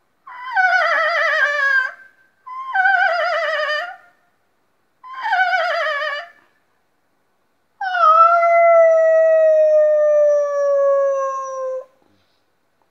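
A man imitating a howling wolf with his voice: three wavering howls of about a second and a half each, then one long howl of about four seconds that slowly falls in pitch.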